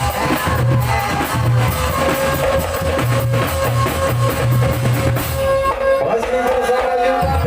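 Loud band music with drums and a pulsing bass line over held melody notes. The bass and drums drop out for about a second and a half near the end, then come back in.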